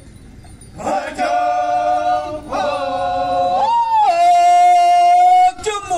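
Group of men singing a Phom Naga folk-dance chant together in long held notes. The singing begins about a second in, steps up to one long held note, and breaks briefly near the end before the next phrase.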